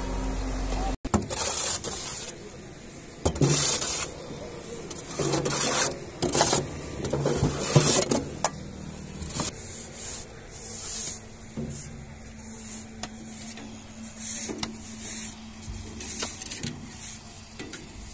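Hand hoes scraping soil and rocks off a steel trolley bed, in repeated irregular strokes with soil sliding and falling.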